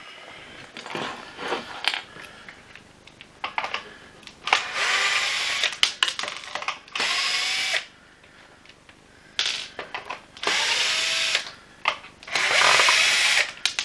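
Cordless drill-driver backing screws out of a vacuum cleaner's plastic floor-head housing, running in four short bursts of about a second each. Between the bursts come clicks and knocks of plastic parts being handled.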